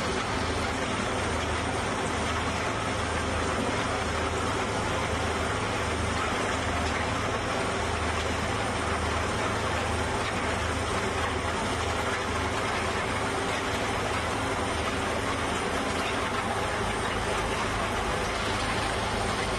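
Rotary drilling rig running: a steady engine-and-hydraulics drone with a strong low hum, unbroken throughout, while the kelly bar works in the drive head.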